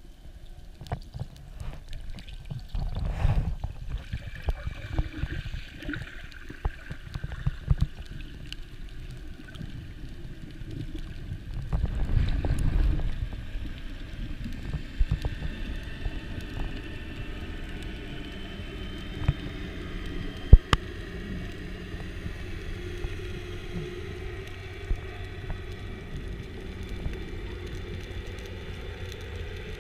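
Underwater sound heard through an action camera's waterproof housing: a muffled low rumble of moving water with scattered clicks and knocks. Two louder surges of water noise come about three and twelve seconds in, and one sharp click about twenty seconds in.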